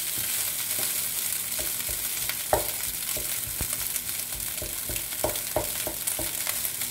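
Fried rice with scrambled egg sizzling in a frying pan as a wooden spatula stirs and scrapes through it, with irregular knocks of the spatula against the pan, the loudest about two and a half seconds in.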